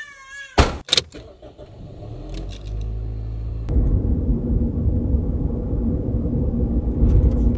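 Rear hatch of a Toyota Probox/Succeed van slammed shut with two sharp bangs, then a car running and driving, its steady engine and road noise growing louder about halfway through.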